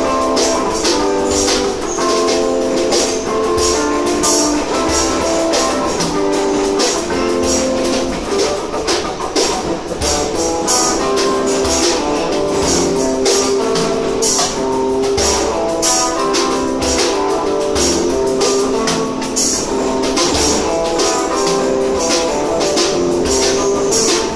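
Music with a steady beat: jingling percussion keeps time over a run of held, changing notes.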